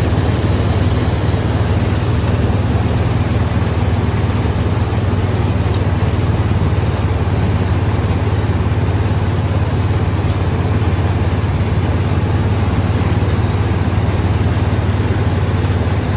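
Combine harvester running steadily under load while harvesting soybeans with a belted all-crop corn head, a constant low engine hum under a wash of machine noise.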